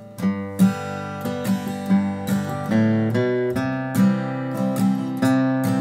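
Acoustic guitar played with a pick: strummed chords linked by single bass notes stepping along the scale, the bass passing tones of a campfire-song accompaniment.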